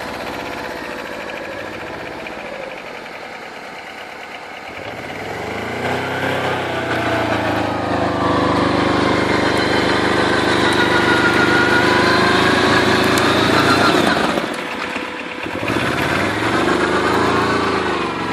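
Arctic Cat diesel quad's engine running, revved up for several seconds about a third of the way in, then dropping back suddenly and revved briefly again near the end.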